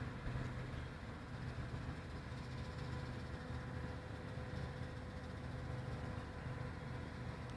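1977 John Deere 975 combine harvester's engine running steadily at an even pitch.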